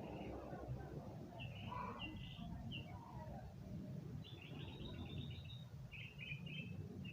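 Bird chirping in quick clusters of short high notes, three bursts one after another, over a steady low background rumble.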